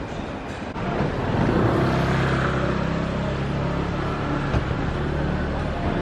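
Street traffic: a motor vehicle's engine running close by, growing louder about a second in and then holding steady.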